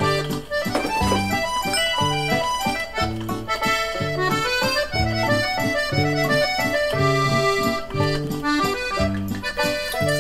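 Background music: a jaunty accordion solo, with bass notes and chords alternating in a steady beat under the melody.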